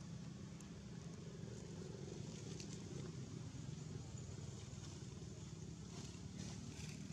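Faint, steady low engine hum, with a few light rustling clicks about six seconds in.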